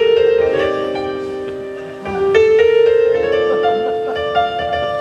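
Live band music: a slow instrumental introduction of held chords in two phrases, each swelling and then fading, the second starting a little over two seconds in.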